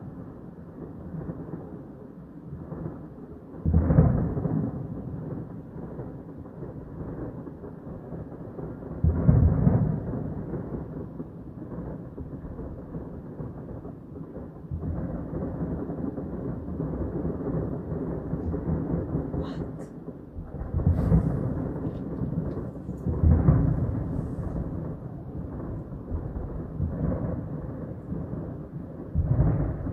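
Thunder rumbling in a thunderstorm: several loud low rolls that swell and fade over a second or two each, over a steady low background noise.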